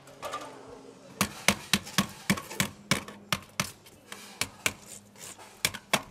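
Hammer striking the crimped, pleated top of a copper vent-pipe flashing sleeve, folding the pleats in: a steady run of sharp blows, about three a second, starting about a second in.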